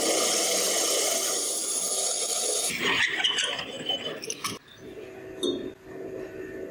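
Power drill driving a large twist drill into the steel of the axe head, a loud, steady cutting noise as it bores the hole. About three seconds in it drops to quieter, uneven scraping with a few sharp clinks.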